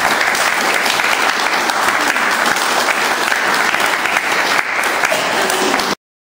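Audience applauding steadily after a poem, many hands clapping at once; the applause cuts off abruptly near the end.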